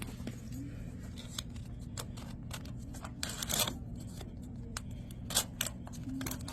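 Samsung dryer running with a steady hum after its heating element was replaced, with short rustling and scraping handling noises about three seconds in and again near the end.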